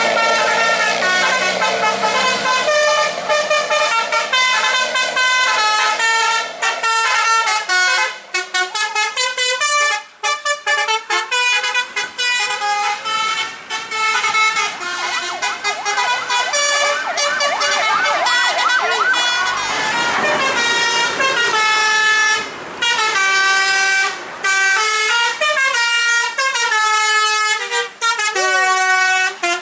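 Bus basuri telolet horn, a multi-tone musical air horn, playing a melody of sustained notes that step up and down in pitch, with short breaks between phrases.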